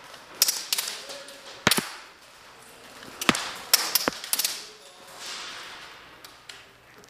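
Airsoft guns firing single shots: about seven sharp cracks at irregular spacing, then a lull.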